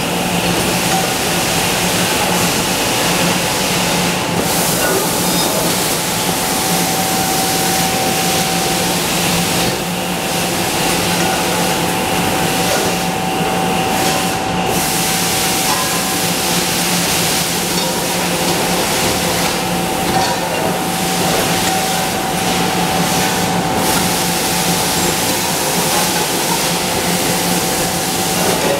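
Automatic aluminium cookware production line running: a steady, loud machinery din with a constant hum, as conveyor belts carry aluminium pot blanks past the presses.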